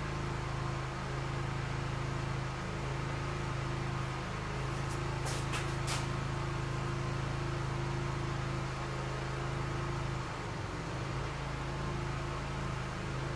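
Steady low mechanical hum with a few sharp clicks about five to six seconds in.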